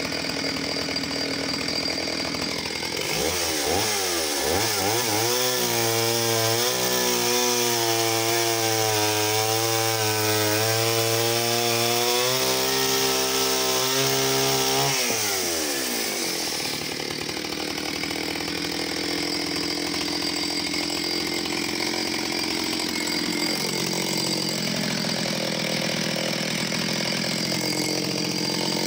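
Oleo Mac 251 vintage chainsaw's two-stroke engine running. About three seconds in it revs up to full throttle and holds there, its pitch wavering as it cuts through wood, then drops back to a lower running speed around sixteen seconds.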